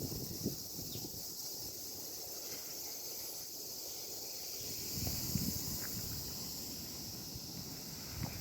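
Steady high-pitched chorus of summer cicadas. Low wind rumble on the microphone swells about five seconds in, and there are a few soft thumps near the start and end.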